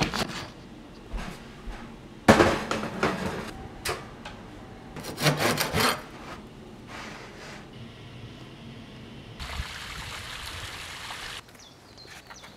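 Several bursts of scraping and rasping, the loudest starting sharply about two seconds in: a serrated bread knife sawing through the crust of a baked loaf on a wooden cutting board, with quick strokes around five to six seconds in. Later, a steady hiss lasts about two seconds.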